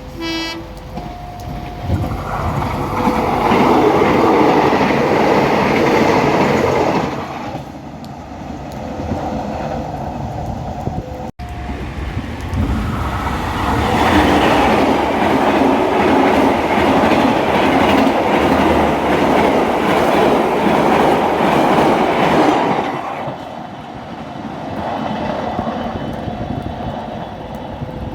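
A train passing over a level crossing, its wheels rumbling and clattering on the rails, in two long loud passes. A short horn sounds just after the start, and steady electronic crossing-alarm tones are heard in the quieter stretches.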